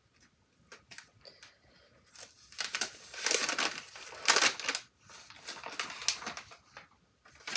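Wrapping being pulled off an item by hand: a crinkling, rustling crackle that starts about two seconds in and is loudest around the middle, after a few faint ticks.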